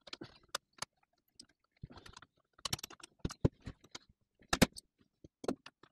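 Irregular small metal clicks, knocks and scrapes from an Erbauer reciprocating saw's quick-release blade clamp as a blade is worked into it by hand and with pliers; the clamp is not latching the blade in. The loudest knock comes about halfway through.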